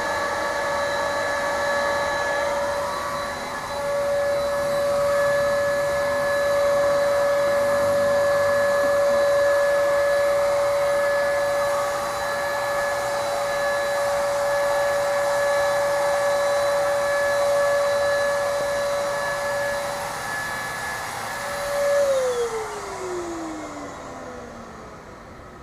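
Electric paint sprayer's motor running with a steady whine and air hiss, then switched off about 22 seconds in, its pitch falling as it spins down.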